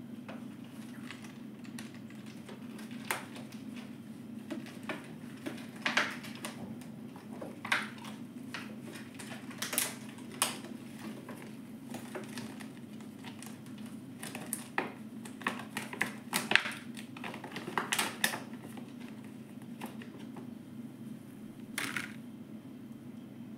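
Stiff plastic packaging tray being handled and pried open: irregular crackles and sharp clicks of plastic, densest in the middle, over a steady low hum.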